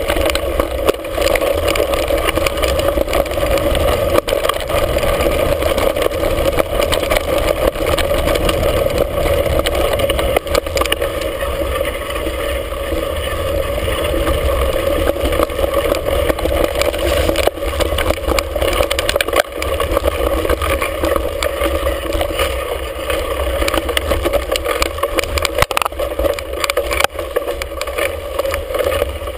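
Mountain bike descending a rough dirt trail, heard from a handlebar-mounted camera: a steady rush of wind and tyre noise with frequent rattles and knocks as the bike goes over bumps.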